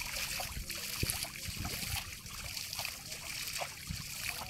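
Water splashing and trickling in small, irregular splashes as a cast net is hauled in through shallow water.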